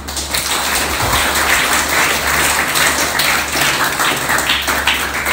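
Audience applauding: dense, steady clapping that starts suddenly and breaks into more separate claps near the end.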